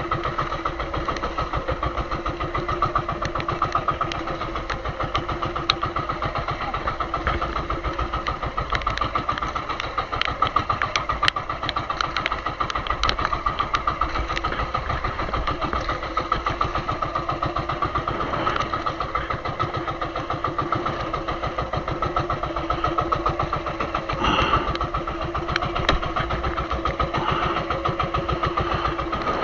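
Small fishing boat's engine running steadily with a fast, even pulse.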